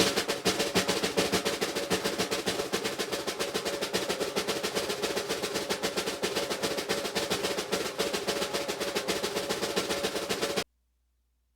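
Snare drum roll, a fast, even run of strokes held at a steady level that cuts off suddenly near the end.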